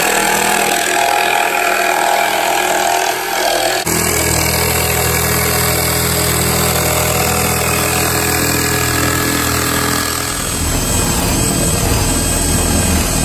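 Corded jigsaw running and cutting through a thick wooden board, its motor and reciprocating blade buzzing steadily; the sound changes abruptly about four seconds in. Near the end a power drill with a spade bit bores a hole through the wood.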